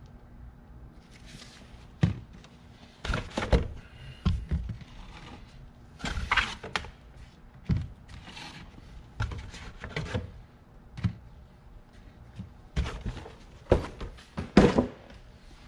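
Irregular series of thunks and knocks from objects being handled and set down, about a dozen in all with some rustling between them; the loudest knocks come near the end.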